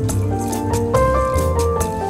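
Background music: a deep bass line and a melody of held notes over a steady, quick high percussion tick, about four a second.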